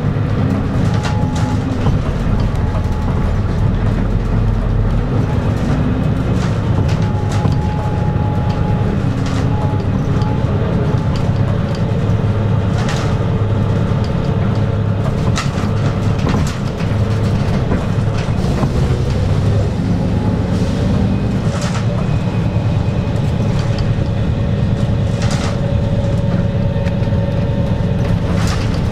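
Inside a Volvo B7R city bus on the move: the steady drone of its six-cylinder diesel and ZF automatic gearbox under road noise, with faint tones drifting slightly in pitch and scattered knocks and rattles from the body.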